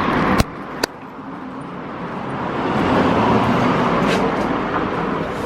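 Street traffic noise, swelling as a vehicle passes around the middle and easing off afterwards. Two sharp clicks sound in the first second.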